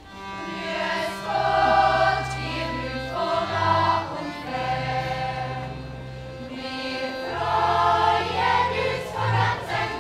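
Choir singing a slow song in held chords, phrase by phrase, with low sustained bass notes under the melody.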